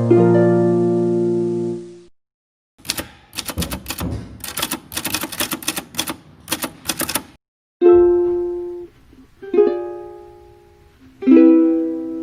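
Background music of plucked-string notes, ukulele-like, that stops about two seconds in. After a short gap comes a run of rapid, irregular sharp clicks lasting about four seconds, then plucked chords resume.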